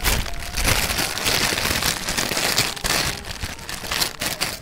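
Clear plastic bag crinkling and rustling, handled without pause as kerupuk crackers are pulled out of it: a dense run of small crackles.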